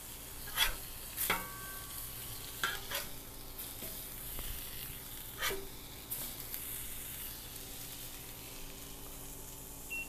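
Ahi tuna steaks sizzling on a hot steel flat-top griddle, with a metal spatula clacking and scraping against the griddle top several times as the steaks are turned.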